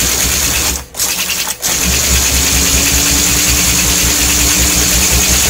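American Flyer #312 locomotive's small electric motor and gears running with a steady whir. The sound cuts out briefly twice, just under a second in and again about half a second later, then runs on steadily.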